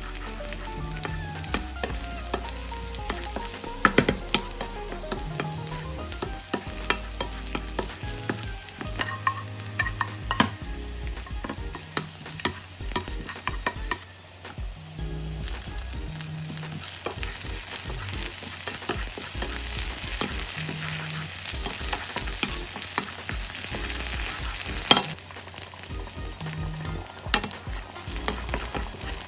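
Food sizzling in a frying pan while it is stirred, with frequent sharp clicks and knocks of a utensil against the pan. A louder knock comes about four seconds in, and another near the end.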